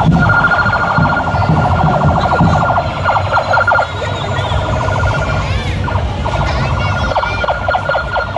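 Police motorcycle escort sirens sounding: a fast, pulsing electronic siren over a steady high tone.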